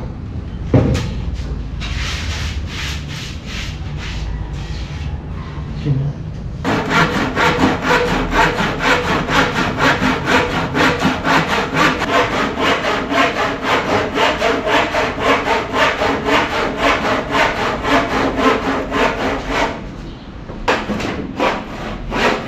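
Handsaw cutting a white laminated board: steady back-and-forth strokes about three a second, broken by a short pause near the end before sawing resumes. Before the sawing starts there is a thump and a few seconds of quieter rubbing as boards are handled.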